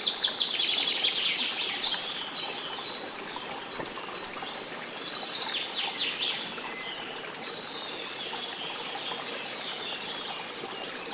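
Songbirds singing: a loud rapid trill in the first second or so, then scattered chirps and quick downward-sweeping notes. Running water makes a steady rush underneath.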